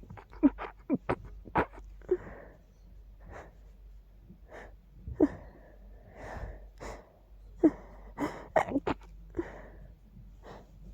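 A person sneezing repeatedly, set off by dust, in a run of short, sharp sneezes with quick breaths between them.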